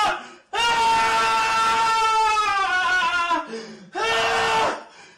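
A voice wailing in long held notes: one of nearly three seconds that sinks in pitch near its end, then a shorter one about four seconds in.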